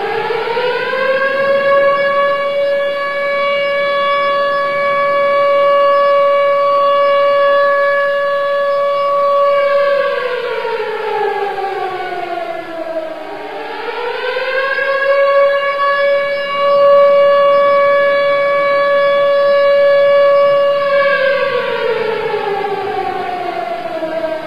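Civil defence siren wailing in two long cycles. Each cycle rises to a steady held tone for about eight seconds, then falls away, with the second fall near the end. This is the siren sounded across Turkey on 10 November in remembrance of Atatürk.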